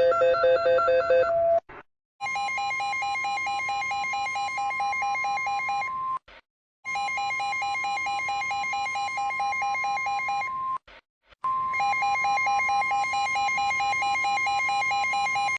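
Edited versions of the UK emergency alert tone: a steady high electronic tone over a rapidly pulsing lower tone. A lower-pitched version ends about a second and a half in. Then a higher version plays three times, each about four seconds long, with brief silent breaks between.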